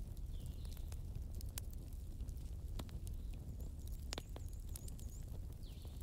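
Steady low background rumble with scattered faint clicks, and a few short high chirps of small birds, a quick run of them about halfway through.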